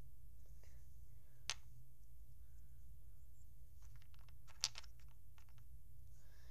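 Small hard plastic clicks and taps of LEGO pieces being handled and pressed together: one sharp click about a second and a half in, then a quick run of clicks in the second half, the loudest near the middle of that run.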